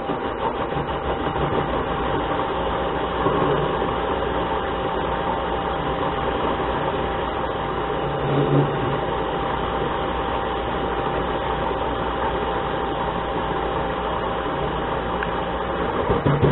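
Harbor Freight mini lathe running, its chuck spinning while a hand-fed tool takes a light turning cut, with a steady whine over the motor and gear noise. The cutting grows briefly louder about halfway through and again at the very end.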